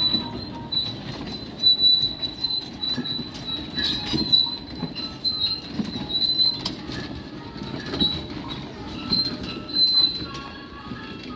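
Small ride-on park train rolling along its narrow track: a steady high squeal from the wheels, with irregular clunks and rattles from the wooden cars.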